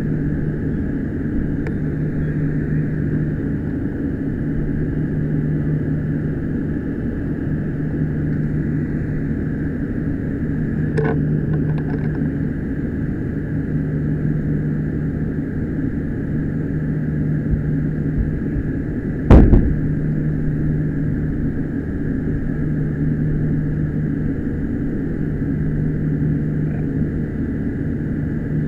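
Steady drone of a running engine, with a constant low hum, a few light clicks, and one short loud knock about two-thirds of the way through.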